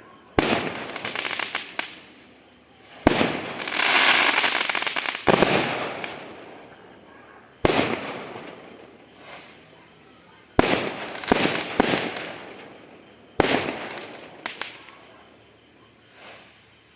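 Fireworks going off: about nine sharp bangs a second or more apart, some in quick pairs, each dying away over a second or two, with a longer hiss about three to five seconds in.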